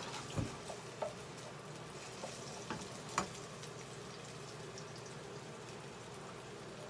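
Minced garlic sizzling in oil in a frying pan, with a few light knocks of the stirring spoon against the pan, the loudest about three seconds in.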